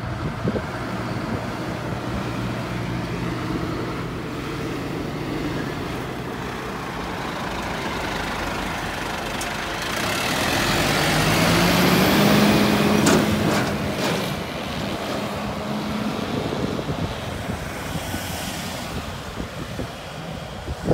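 Scania fire truck's diesel engine running steadily at low revs, then rising in pitch and growing louder as the truck pulls out and drives past at close range, loudest about halfway through, before fading.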